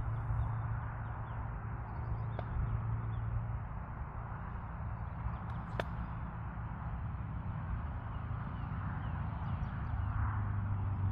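Steady outdoor background noise: a low rumble with a hiss above it, broken by two faint clicks, one about two and a half seconds in and one near six seconds.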